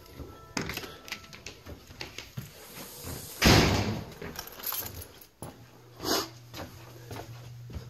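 A door being opened and passed through, with knocks and handling noise from a handheld camera and a loud rush of noise lasting under a second about three and a half seconds in. A low steady hum comes in about five and a half seconds in.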